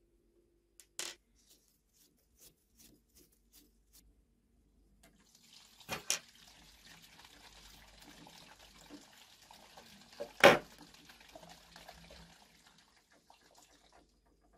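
Small steel parts of a lathe cross-slide being handled: a few sharp clicks and knocks as the ball crank handle and the knurled graduated dial are worked off the feed screw, the loudest knock about ten seconds in, with a soft rasping hiss through the middle stretch.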